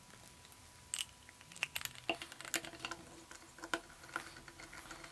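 Faint, irregular small clicks and taps of a screwdriver driving the screw that fastens a pistol grip to an aluminium rifle chassis. The clicks start about a second in and come scattered over the next three seconds.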